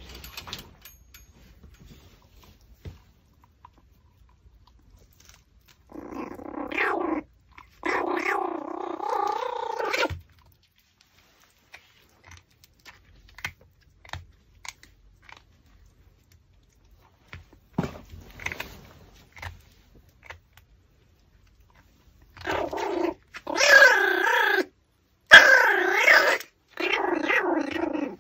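Pomeranian puppy growling in high-pitched, wavering bouts while it eats raw pork bone, in two spells of several growls each a second or two long, with faint chewing clicks between.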